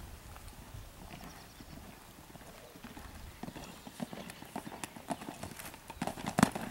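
Hoofbeats of a Holsteiner mare cantering on sand arena footing, growing louder as she comes towards the fence. The loudest thuds come near the end as she lands after the jump.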